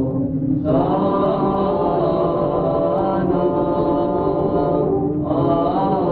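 Orthodox Byzantine-style chant: a voice sings long, held notes over a steady low drone. The melody breaks off briefly near the start and again about five seconds in while the drone carries on.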